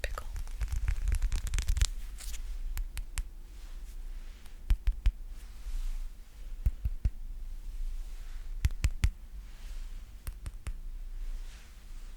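Sticky ASMR trigger sounds close to the microphone: a dense crackling, peeling sound for about the first two seconds, then scattered sharp sticky clicks and taps.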